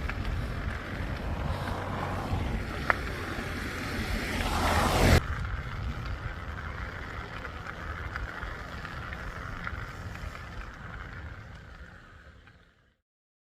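Steady rushing noise of wind and road traffic, swelling to a loud peak about five seconds in, then dropping suddenly and fading away near the end, with a single sharp click at about three seconds.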